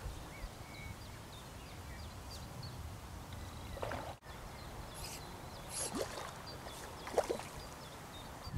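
Riverbank ambience: a steady low rumble with scattered faint bird chirps, and a few short, soft swishes in the second half.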